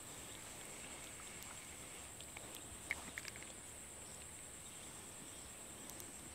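Faint open-swamp ambience: a steady high-pitched drone of insects, with a few short chirps about three seconds in.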